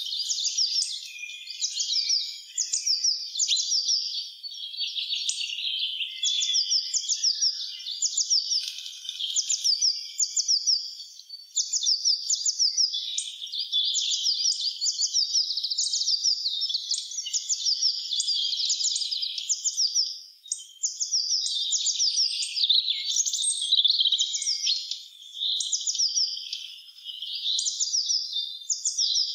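Songbirds singing in spring, a dense chorus of short high-pitched phrases overlapping and repeating almost without a break.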